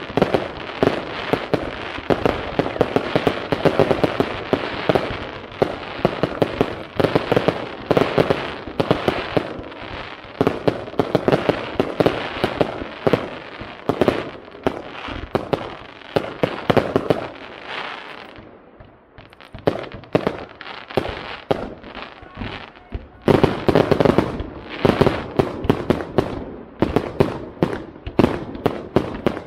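Aerial fireworks display: a dense, continuous run of shell bursts and crackling. There is a short lull about two-thirds of the way through, then a fresh, loud volley.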